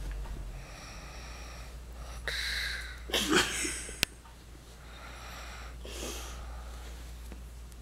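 A sleeping man snoring: rough breaths about every one to two seconds, some with a thin whistle. The loudest, roughest breath comes about three seconds in, followed by a sharp click.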